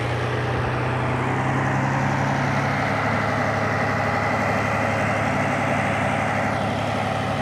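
Engine of a boom-lift crane running steadily at low speed while the crane slowly manoeuvres to turn.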